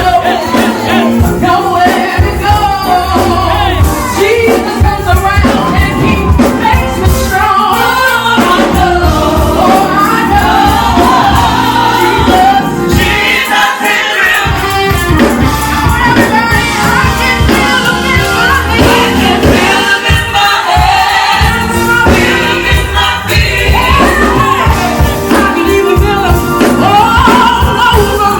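Live gospel music: a group of singers performing over a band with a steady beat and heavy bass.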